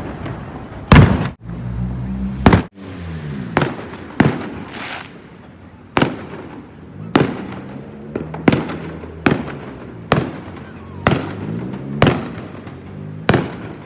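Aerial fireworks bursting: a run of sharp bangs about once a second, each dying away briefly after it.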